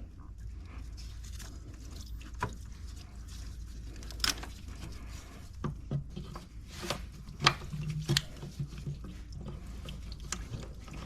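Scattered light clicks and knocks of hands and tools working loose hoses and fittings on an engine's intake, irregular and a few seconds apart, busiest in the middle, over a low steady hum.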